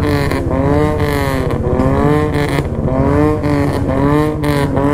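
Motorcycle engines being revved again and again, the pitch rising and falling in repeated swells over a steady low engine rumble.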